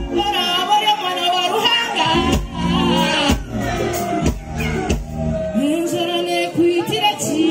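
A woman singing live with a band of acoustic and electric guitars, bass and keyboard, her voice held and wavering on long notes; the deep bass largely drops out for most of the passage, leaving the voice over lighter backing.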